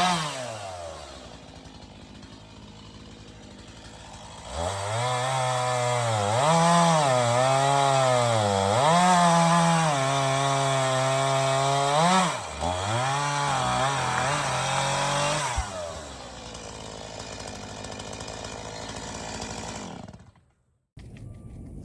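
A two-stroke chainsaw running: it idles, then is throttled up and runs hard for about ten seconds with its pitch dipping and recovering as if under load while cutting. It briefly lets off once and then drops back to idle. Near the end the sound cuts off abruptly.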